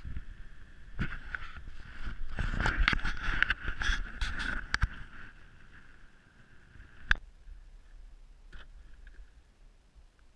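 Handling noise from a GoPro Hero3 being carried and repositioned: rubbing and knocks, loudest in the first half, with one sharp click about seven seconds in. Then it turns quieter.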